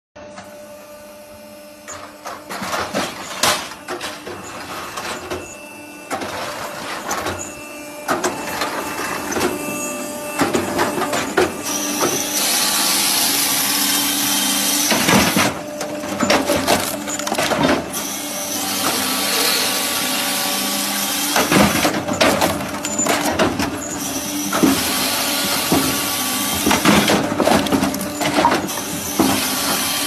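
A firewood processor (log saw-splitter) running: a steady machine hum under long stretches of loud cutting noise, with repeated knocks and clatter as logs are split and pieces fall.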